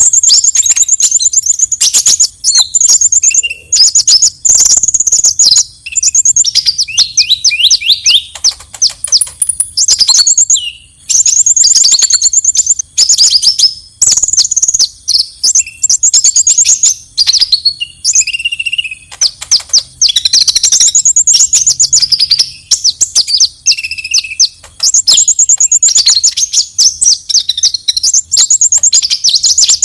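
Kolibri ninja (Van Hasselt's sunbird) giving its fighting song: fast, high-pitched chattering trills in quick phrases with short breaks between them.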